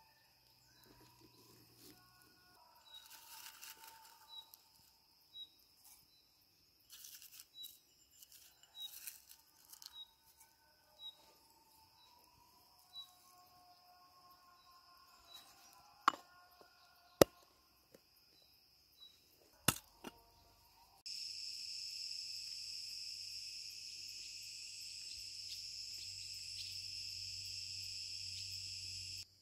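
Faint scattered clicks and taps around a dying campfire, with a few sharp ticks, and soft evenly spaced chirps. About two-thirds of the way in, a steady, even chorus of evening insects starts suddenly and is the loudest sound. A low hum runs under it, and it cuts off sharply near the end.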